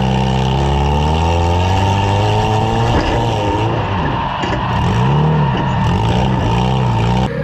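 Engines of compact demolition derby cars revving, their pitch rising and falling again and again, with more than one engine heard at once. The sound changes abruptly near the end.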